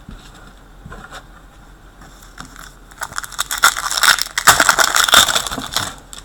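Plastic foil wrapper of a hockey card pack crinkling as it is torn open, a few faint ticks and then a dense crackling run from about three seconds in.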